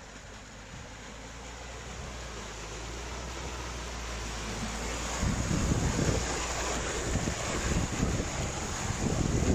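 Volvo XC70 D5 AWD ploughing through deep mud and standing water: the engine runs steadily under load while the tyres churn and splash through the slop, growing louder as the car nears. From about five seconds in, the splashing and churning of mud becomes heavy, with wind buffeting the microphone.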